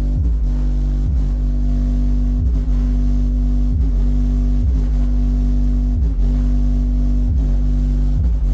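Bass-heavy dance music played loud through an Ahuja N18-SW1800 1800 W neodymium speaker, with deep sustained bass notes and a short bass sweep repeating about every second and a quarter.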